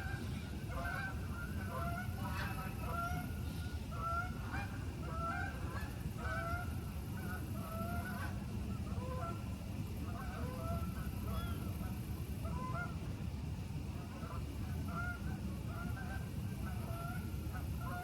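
A large flock of waterfowl, likely geese, calling continuously: many short, overlapping honking calls with no break. A steady low rumble runs underneath.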